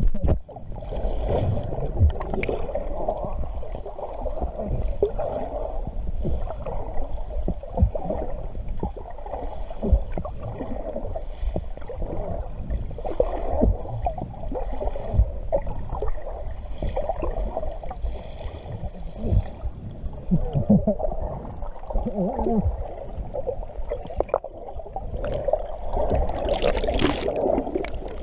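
Muffled sloshing and gurgling of seawater against the camera, with irregular knocks and a louder splash near the end.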